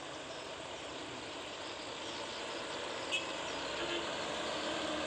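Diesel dump truck engines running on a rough dirt road, the sound slowly growing louder as a truck comes closer. A short sharp click about three seconds in.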